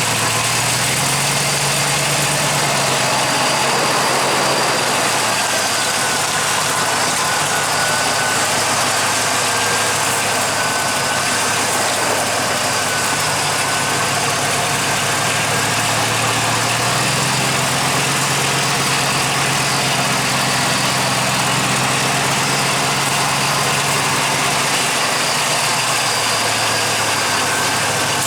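2000 GMC's engine running under a steady, loud rushing noise; the low engine note steps up about a second in and again past the middle.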